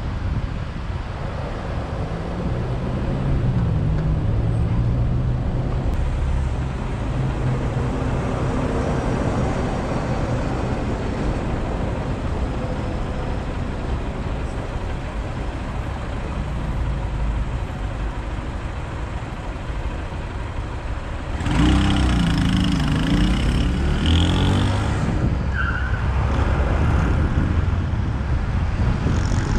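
Traffic waiting at a light, with engines idling in a steady low rumble. About two-thirds of the way through it suddenly gets louder as traffic pulls away, with a motorcycle's engine revving up close, followed by steady road and wind noise as the car drives on.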